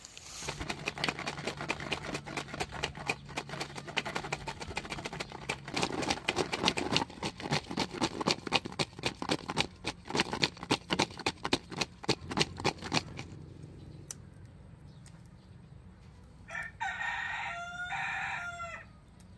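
A rooster crows once near the end, one drawn-out call of about two and a half seconds. Before it, a long run of quick clicks and taps, loudest in the middle, stops about two-thirds of the way through.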